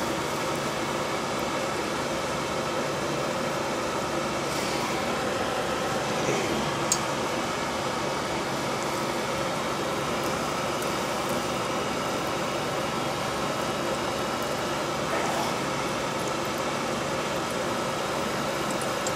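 Cooking oil sizzling steadily around a Twinkie deep-frying on a skewer, the oil running too hot and smoking, over a steady mechanical hum, with one sharp pop about seven seconds in.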